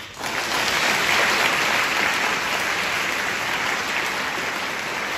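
Audience applauding in a hall, breaking out all at once and holding steady.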